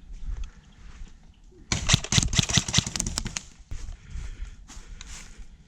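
Airsoft electric gun (a Lancer Tactical LT-29 Enforcer M4 AEG) firing a rapid full-auto burst of about a second and a half, followed by a few scattered single shots.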